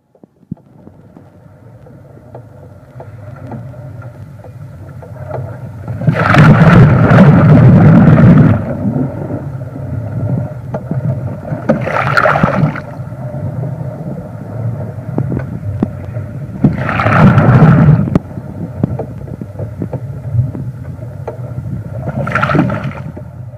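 Sea waves surging and washing against a sailing ship's hull, four loud surges about five seconds apart over a steady low rumble. The sound fades in over the first few seconds.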